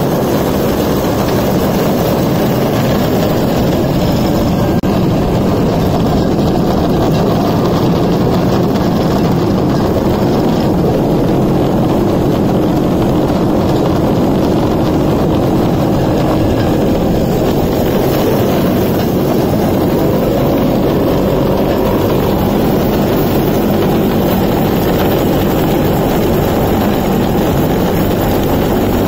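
Suzuki 125cc two-stroke engine of a homemade rail cart running steadily at speed as the cart rolls along the rails.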